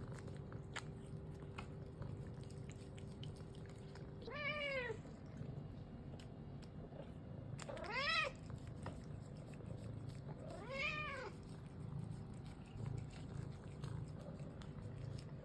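A domestic cat meows three times, about three seconds apart, each a short call that rises and falls in pitch. There are faint crunching clicks of eating in the first two seconds.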